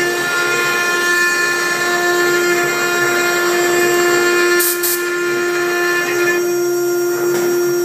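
6090 CNC router spindle running with a steady whine as its engraving bit cuts into MDF. Two brief high hisses come just under five seconds in.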